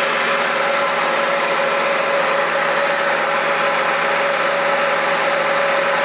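Holden Barina's 1.6-litre engine and front drivetrain running in gear with the front wheels spinning free on a hoist: a steady hum with one steady tone through it, a little noisy. The mechanic puts the noise and vibration down to a front CV shaft that is out of balance, either worn or bent.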